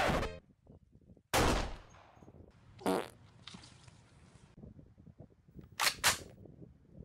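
A string of loud, sudden bursts: one right at the start, another about a second and a half in that fades over half a second, a shorter one near three seconds, then two sharp cracks in quick succession near the end.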